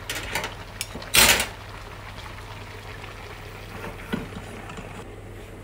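Pan of seafood, corn and squid simmering on the stove, a steady faint bubbling hiss over a low hum. A short, loud clatter of cookware comes about a second in, with a few light clicks around it.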